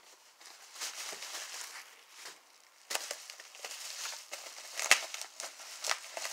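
Bubble wrap crinkling and rustling in the hands in uneven bursts, with a sharp click about five seconds in.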